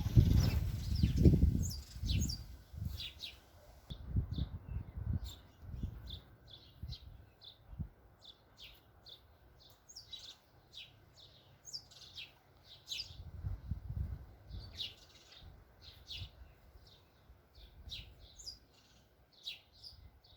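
Small birds chirping in quick short notes over and over, with gusts of wind buffeting the microphone, loudest in the first couple of seconds and again about two-thirds of the way through.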